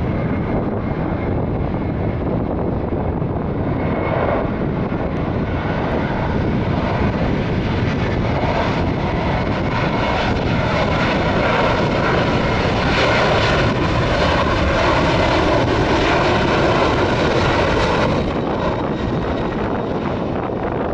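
Jet engines of a Boeing 737 airliner heard during its takeoff run: a loud, steady rumble with whining tones. It swells from about six seconds in and falls back suddenly near the end.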